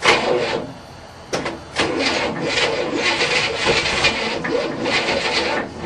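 Starter cranking the 1967 Cadillac's V8, turning it over without it catching. A short burst at first, then steady rhythmic cranking from about a second and a half in.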